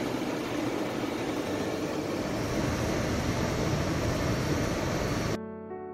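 Steady rumble and hiss of a car driving on snowy roads, heard inside the cabin. Near the end it cuts off suddenly and soft piano music takes over.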